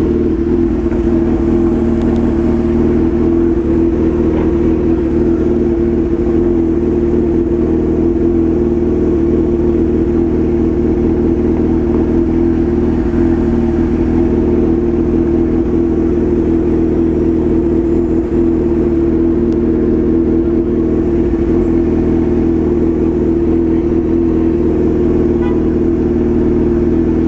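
Honda CB1000 motorcycle's inline-four engine running steadily at an even pitch, without revving up or down.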